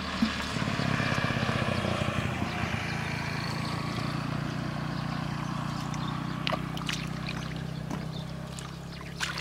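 An engine running steadily, with a few short clicks and splashes of water in the second half.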